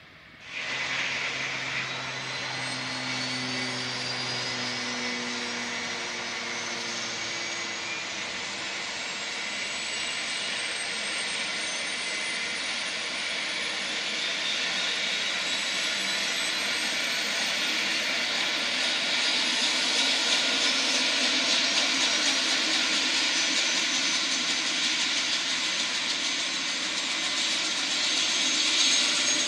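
Eurocopter AS350B1 AStar helicopter's turbine engine starting up: it kicks in suddenly about half a second in, then a whine rises steadily in pitch as the turbine spools up, the noise growing louder as the rotor begins to turn.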